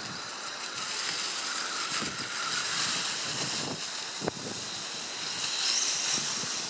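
Electric RC truggy driving over dry leaves and sand: the motor whines, rising and falling in pitch, over a steady rush from the tyres churning through leaves. There is one sharp knock a little after four seconds.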